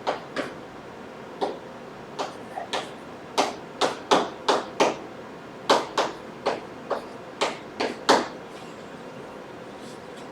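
A run of about twenty irregular sharp taps and clicks, typical of writing strokes with a pen or marker on a writing surface, stopping about two seconds before the end.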